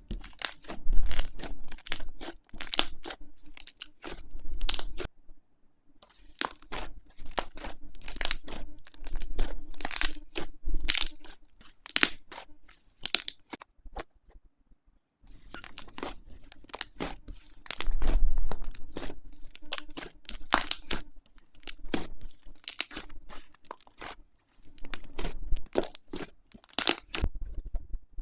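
Slime being pressed, poked and stretched by hand, giving dense runs of sticky clicks and crackling pops. These come in three stretches broken by two short silences.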